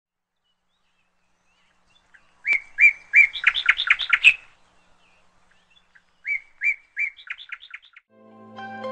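A songbird singing two similar phrases a few seconds apart, each a few clear separate notes followed by a quick run of notes.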